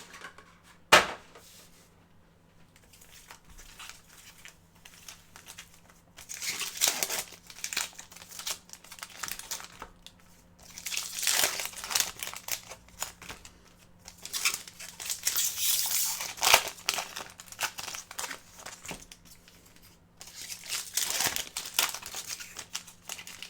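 Foil trading-card pack wrappers being torn open and crinkled, in four bouts of a few seconds each, with a sharp click about a second in.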